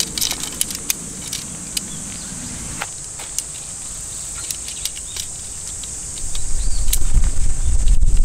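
Light clicks and clinks of sectional tarp pole pieces being handled and fitted together, over a steady high buzz of insects. A low rumble comes in about six seconds in and is the loudest part.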